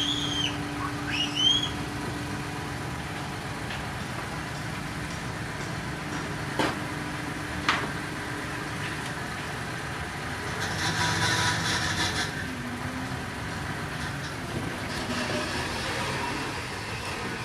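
Diesel engines of heavy earthmoving machinery running steadily, with two sharp clicks about halfway through and a louder hissing stretch a little after.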